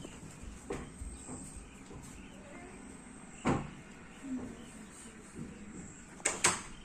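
A few short knocks or bumps over a faint steady background, with the loudest two close together near the end.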